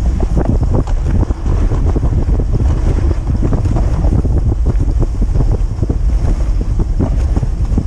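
Wind rushing over the microphone of a camera riding on a moving dog sled, with dense, irregular crackling and scraping from the sled running over the packed snow trail.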